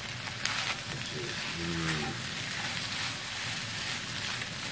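Scrambled eggs and potatoes sizzling in a frying pan, stirred and scraped with a silicone spatula.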